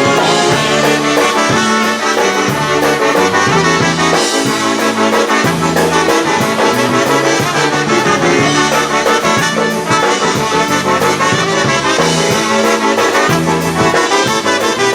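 Live polka band playing an instrumental passage of an oberek in quick triple time, with trumpet and trombone carrying the tune over a steady beat.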